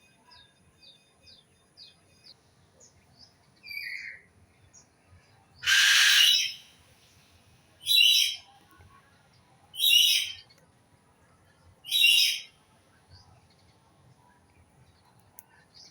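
A bird giving four loud, harsh, rasping calls about two seconds apart, the first one the longest. Faint high chirps come from other birds before them.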